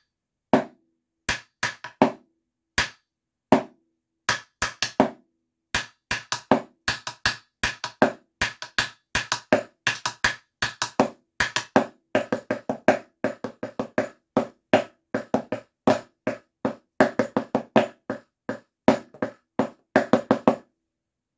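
Wooden drumsticks played on a snare drum practice pad: a snare drumline part with accents, flams and gallops. It starts with sparse, spaced strokes and from about six seconds in becomes a dense groove of fast sixteenth-note runs.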